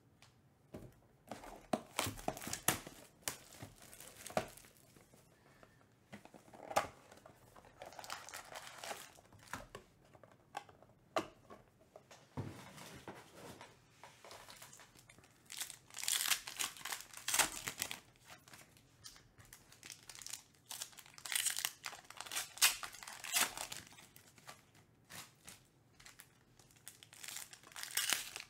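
Foil packs of Panini Elite Extra Edition Baseball cards crinkling and being torn open by hand, in irregular bursts of rustling and ripping that are busiest past the middle.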